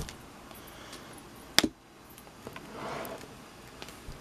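Trading cards being handled: a sharp click about one and a half seconds in, a few light taps, and a soft swish of cards sliding around three seconds in.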